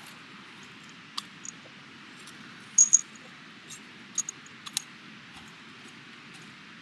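A few light metallic clinks and clicks over a steady low hiss; the loudest is a quick pair about three seconds in, with a couple more a little past four seconds.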